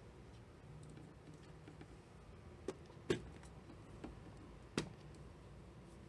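A few sharp clicks a little past the middle, the second the loudest, over a faint steady low hum.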